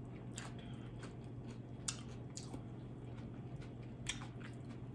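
Close-miked chewing and biting of fried tilapia, with a few sharp, crisp clicks spread through it, the loudest a little before the middle.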